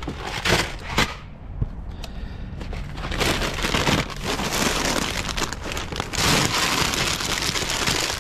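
Plastic snack bags crinkling and rustling as they are grabbed by the armful and dropped into a car trunk, with a few sharp knocks of boxes in the first second.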